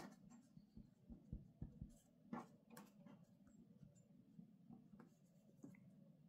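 Faint pen-on-paper writing: short scratchy strokes and light, irregular taps as letters, bond lines and dots are drawn.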